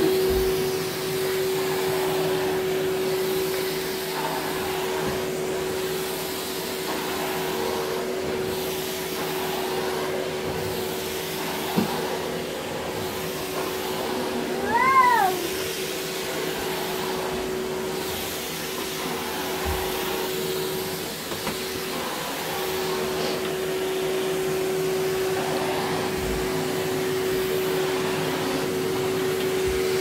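Vacuum cleaner running steadily with a constant hum that drops out briefly about two-thirds of the way through. About halfway there is one short, high squeal that rises and falls, and a sharp click just before it.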